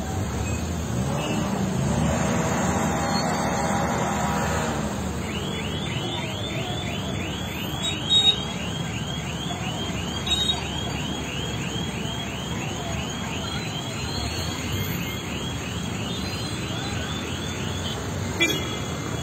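Road traffic noise from slow vehicles on a flooded highway: a steady rush with a long pitched tone in the first few seconds. Through most of the middle a repeating electronic-sounding chirp comes about two or three times a second, and there are three short loud bangs or knocks.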